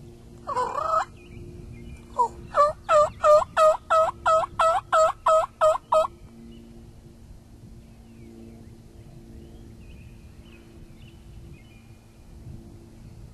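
Turkey yelping: one short call about half a second in, then a loud run of about a dozen evenly spaced raspy yelps, roughly three or four a second, ending about six seconds in.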